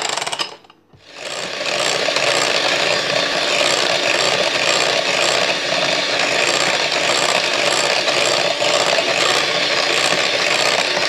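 Electric hand mixer running, its twin beaters whirring through a cream mixture in a glass bowl. The sound drops out briefly under a second in, then runs on steadily.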